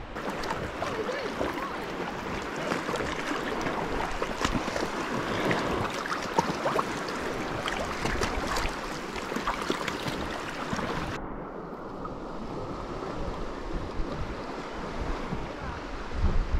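Sea water lapping and splashing close around a kayak, a crackly wash of many small splashes. About eleven seconds in, the sound abruptly turns duller, losing its high end.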